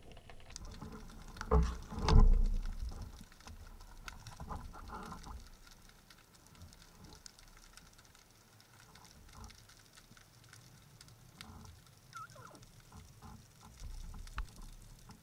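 Underwater knocks and taps from a speargun and its shaft being handled: two heavy knocks about a second and a half and two seconds in, then scattered small clicks and taps, muffled as heard underwater.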